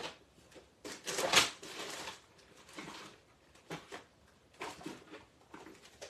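Handling noises from craft materials on a desk: a short tap, then a longer rustle about a second in, then a few brief scrapes and taps.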